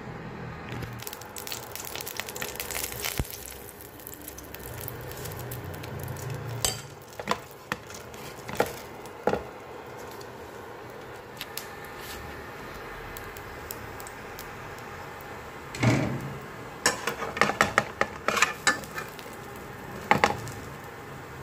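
Kitchen utensils clinking on a nonstick frying pan while a hot cake cooks: a few separate clinks between about 3 and 9 seconds in, then a quick run of clatters and scrapes from about 16 seconds as a metal spatula works the pancake in the pan.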